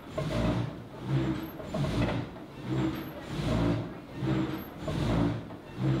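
Wind-powered sawmill's frame saw: a set of vertical blades driven up and down by a crankshaft, rasping through a log in a steady rhythm of strokes, with the wooden mill vibrating under the cutting arm. Its cutting speed rises and falls with the wind.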